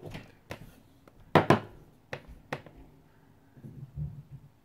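Handling noise from a dry-erase marker and a small whiteboard: a series of sharp clicks and light taps, the two loudest close together about a second and a half in. Near the end comes the fainter sound of the marker drawing strokes on the board.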